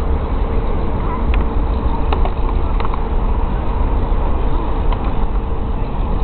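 A steady low rumble with a faint constant hum, broken by a few light clacks of skateboards on concrete.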